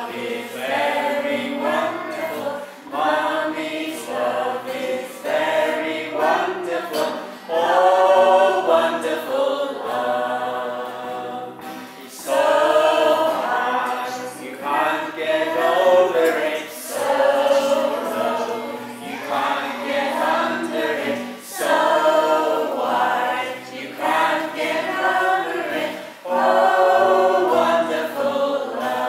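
A small group of young children and women singing a simple children's song together in short phrases.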